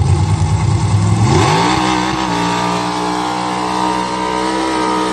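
Nitrous-fed small-block Chevy V8 of a squarebody Chevy mud truck launching down a dirt drag lane. A low engine rumble gives way, about a second in, to a fast rise in pitch, and the engine then holds steady at high revs under full throttle.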